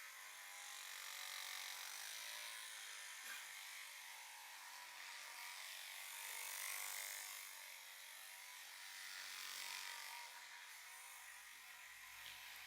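Hands rubbing over hair and scalp in a head massage: a soft, continuous rustling hiss that swells and fades every few seconds.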